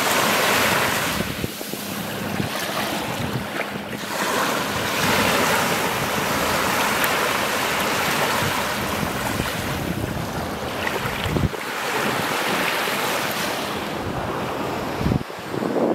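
Sea waves washing onto the beach, the wash swelling and easing in several long surges, with wind buffeting the microphone.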